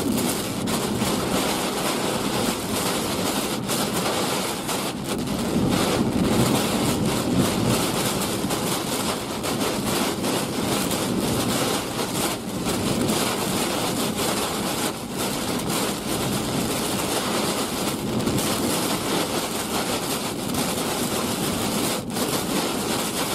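Heavy hurricane rain and wind beating on a moving vehicle, a steady dense wash of noise with no let-up.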